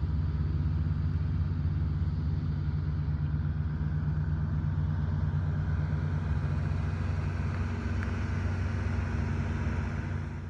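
Renault 4 GTL's engine running steadily with a low, even hum. It cuts off suddenly near the end.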